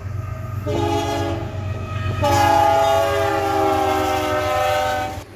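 BNSF diesel locomotive's multi-tone air horn blowing for a grade crossing: a chord that starts about a second in, gets much louder about two seconds in as the locomotive nears, and cuts off suddenly near the end, over the steady low rumble of the passing locomotive.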